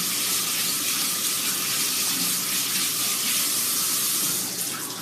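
Kitchen faucet running into the sink as hands are washed under it, a steady rush of water that is turned off near the end.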